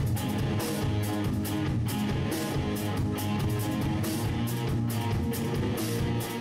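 Instrumental progressive rock: electric guitar chords over a drum kit, played steadily throughout.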